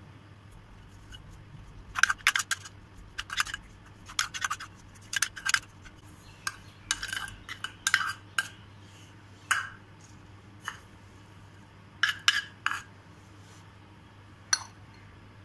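Small white bowls clinking and knocking against the rim of a glass mixing bowl as chopped vegetables are tipped and tapped out into it, in short clusters of sharp clinks several times over.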